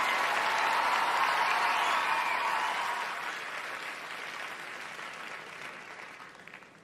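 Large theatre audience applauding with a few cheers, the applause dying away steadily to near silence.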